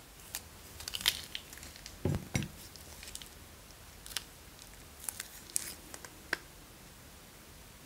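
Thin plastic bag crinkling and crackling as it is handled and squeezed, with scattered sharp clicks and two low thumps about two seconds in; the sounds stop after about six and a half seconds.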